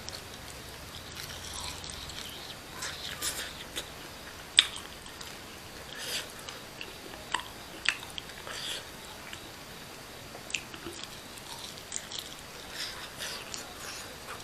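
Close-miked eating sounds: biting into and chewing chicken, with wet mouth smacks and scattered small clicks. One sharp click about four and a half seconds in is the loudest.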